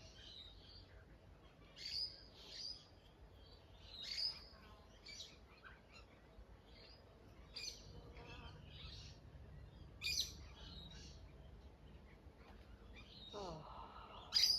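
Wild birds chirping and calling, short high notes every second or two, with a louder call near the end.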